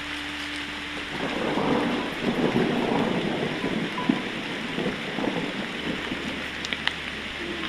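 Heavy rain falling steadily, with a louder, rumbling stretch lasting a few seconds from about a second in.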